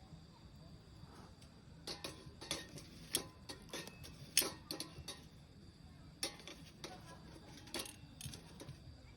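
Firewood burning in a Solo Stove, crackling and popping with irregular sharp snaps in two runs, the loudest pop a little before the middle.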